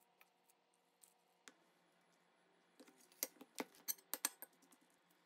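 Faint room hum, then about three seconds in a quick run of sharp clinks: a metal fork knocking against a plate while tossing noodles with butter.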